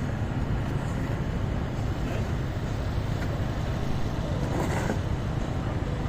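Steady low rumble of motor vehicles on a city street, traffic or idling engines, with a brief faint sound about four and a half seconds in.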